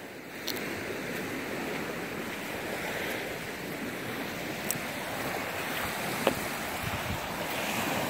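Small wind-driven waves washing steadily onto a sandy shore, with wind buffeting the microphone and a few faint clicks.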